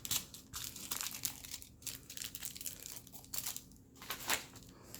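Small plastic bags of diamond-painting drills crinkling as they are handled, in irregular short bursts.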